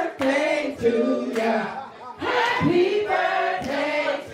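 A group of people singing together, loud and rowdy, one voice carried by a handheld microphone, in phrases with a short pause about two seconds in.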